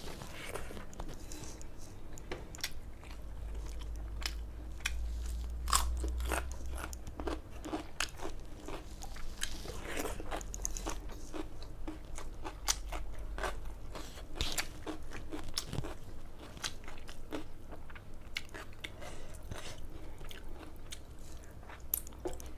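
Crunchy food being bitten and chewed close to the microphone: a steady, irregular run of crisp crunches and crackles.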